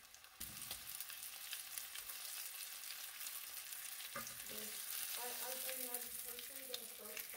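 Sous vide cooked chicken breasts sizzling and crackling in hot fat in a stainless steel frying pan as they are seared for a crust, the sizzle jumping up about half a second in and then holding steady. Metal tongs click against the pan as the pieces are turned.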